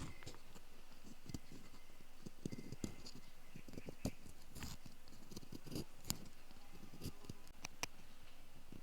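Ear pick scratching and clicking in an ear: irregular soft scrapes with a few sharper clicks spread through.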